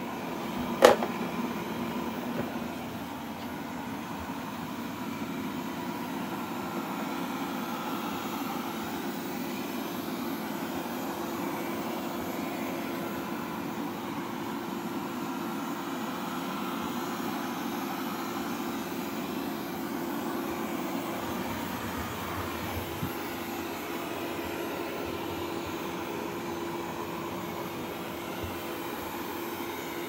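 Wyze robot vacuum running steadily with a constant hum, with one sharp knock about a second in.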